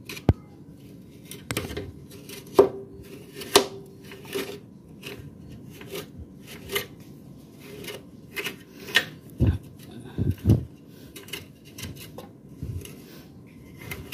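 Metal tools and parts being handled on a Suzuki RC100 motorcycle engine: irregular clinks, taps and scrapes, with three dull knocks about nine and a half to ten and a half seconds in.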